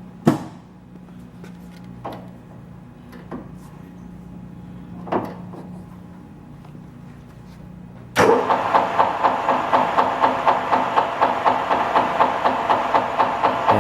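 Bridgeport Romi lathe in gear range 1: a low steady hum with a few sharp clicks, then about eight seconds in the spindle comes up to 224 RPM, running loudly with a rhythmic tick about four times a second, roughly once per spindle turn. This range is said to have a small tick.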